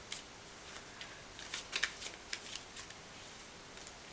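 Tarot cards being flipped through by hand: scattered light snaps and flicks of the cards, busiest about one and a half to two seconds in.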